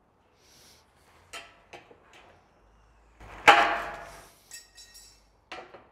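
Aviation snips cutting a notch in sheet-metal roofing trim: a few short snips, then a louder clatter of the metal piece about three and a half seconds in, followed by a brief high metallic ringing.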